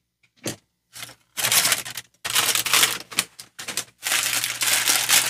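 Wax paper bags crinkling as they are handled and opened. Two short clicks come in the first second, then several longer bursts of rustling.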